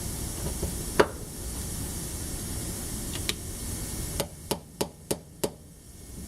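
Light metal taps driving the lifter travel limiter pin into the trigger guard of a Stoeger M3000-series shotgun trigger group: a single sharp click about a second in, then a run of five quick taps, about three a second, near the end. A faint steady hiss underneath.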